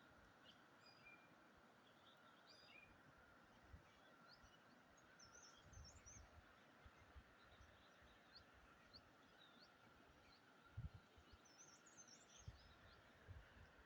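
Faint, scattered birdsong of short chirps and quick high notes over a steady faint drone, with a few low bumps, the strongest about eleven seconds in.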